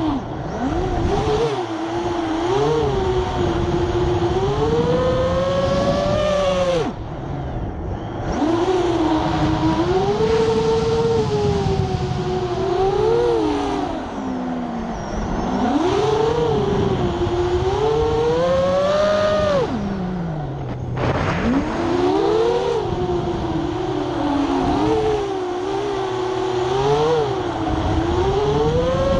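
FPV freestyle quadcopter's brushless motors spinning 7-inch three-blade propellers: a buzzing whine that rises and falls in pitch with the throttle. Twice, about 7 and 21 seconds in, the throttle is chopped and the whine drops away for about a second before it spools back up.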